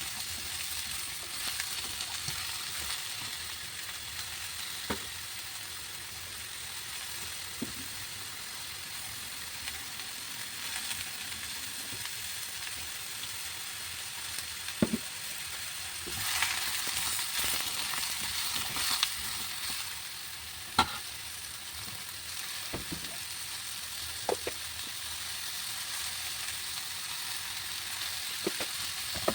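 Food sizzling as it fries in a pan, a steady hiss that swells for a few seconds past the middle, with scattered sharp taps of a utensil against the pan.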